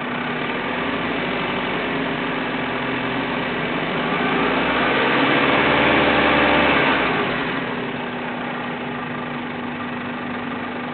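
Car engine with a vacuum leak idling, the throttle opened for about three seconds in the middle so it runs faster and louder, then dropping back to idle. A steady hiss from the leak sits under the engine note and grows louder with the open throttle.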